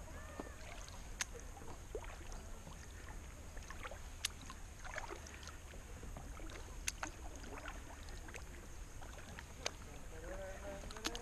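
Kayak paddling on calm water: the paddle blades dip and splash, and water trickles off them, with a sharp click every few seconds.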